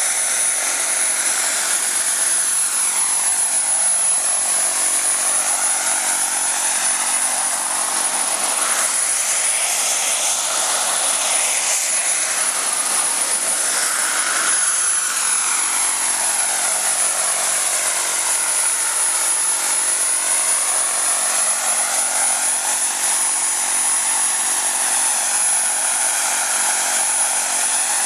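JetCat PHT2 turbine of a scale model Alouette II helicopter running in flight: a steady high-pitched turbine whine over the rush of the turbine and rotor, its tone sweeping up and down as the helicopter moves about.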